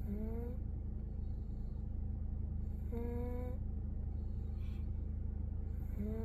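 Sleeping baby snoring: a short hummed 'mm' of slightly rising pitch about every three seconds, three in all, over a steady low rumble.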